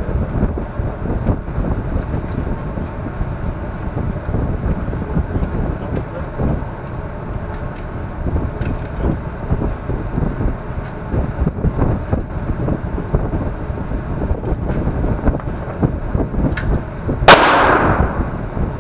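Steady low rumble, then about seventeen seconds in a single loud gunshot with a short echoing tail off the walls of an indoor firing range.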